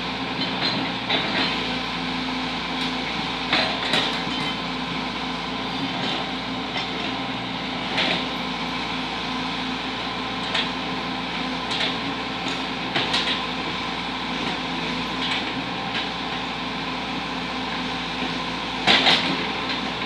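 Hitachi crawler excavator's diesel engine running steadily under load while its bucket digs out a roadside ditch, with short metallic clanks from the bucket and boom linkage every few seconds, the loudest near the end.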